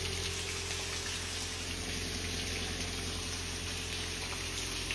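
Steady hiss of rain and running floodwater, with a faint low hum underneath.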